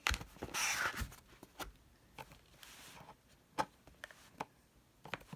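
Cardboard product box being slid open by hand: cardboard rubbing and scraping, with a few light knocks and clicks.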